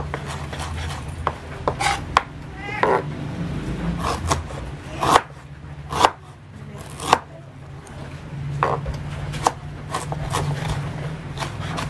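Kitchen knife slicing fresh ginger on a wooden cutting board: irregular knocks of the blade through the root onto the board, with a few sharper strikes in the middle. A steady low hum runs underneath.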